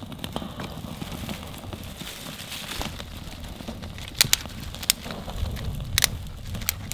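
Freshly lit kindling fire of dry twigs and bark catching and crackling, with about five sharp pops and snaps in the second half.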